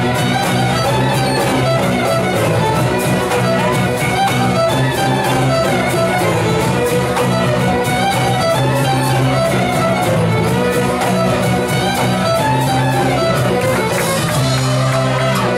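Live folk ensemble playing a tune led by fiddles over a held bass line, with a steady percussive beat.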